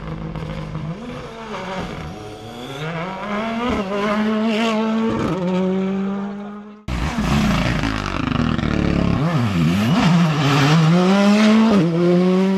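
Two rally cars in turn, first a Ford Fiesta R5, each driven hard through the gears: the engine note climbs and drops back at each shift, with a few sharp cracks in the first. The sound cuts abruptly about seven seconds in to a second car revving the same way.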